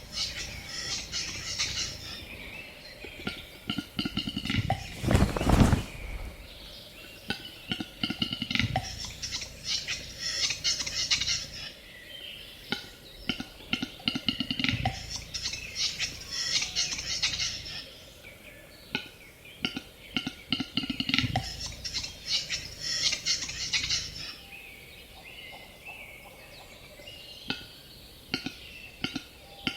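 Capercaillie display song: repeated bouts of dry clicks running into a scraping, clattering phrase, with short pauses between bouts. There is one loud thump about five seconds in.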